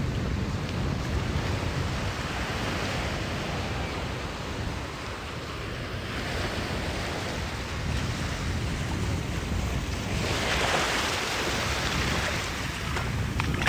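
Ocean surf breaking and washing up a beach, with wind buffeting the microphone. A bigger wave surges in about ten seconds in and falls away.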